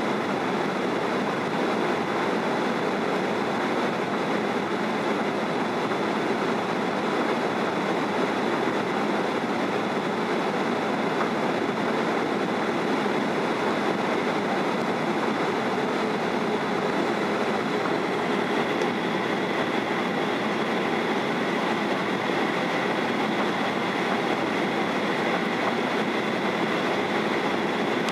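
Steady cabin noise inside a Boeing 737-800 on approach with flaps extended: an even rush of airflow and engine noise with a faint high whine over it.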